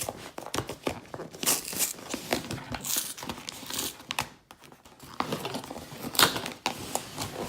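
A Priority Mail package being torn open by hand: irregular rips and crinkling of the packaging, with a short lull about midway and the sharpest rip near the end.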